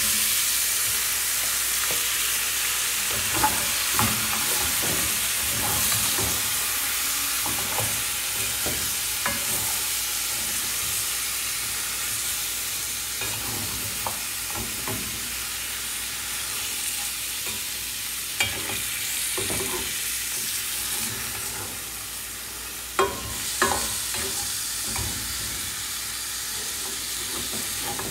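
Chicken feet and onions frying in hot oil in a cast-iron pot: a steady, loud sizzle that eases a little over time. A spatula stirring the pieces scrapes and knocks against the pot a few times, two sharp knocks close together near the end.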